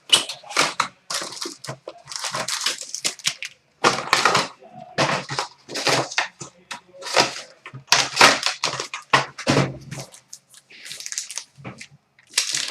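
Plastic wrapping crinkling and tearing in a string of short, irregular bursts as a sealed box of hockey trading cards and its packs are opened.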